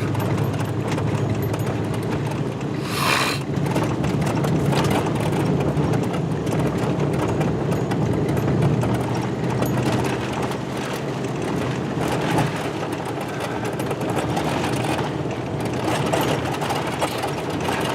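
Pickup truck driving on a dirt road, heard from inside the cab: steady engine and road noise, with a brief louder hiss about three seconds in.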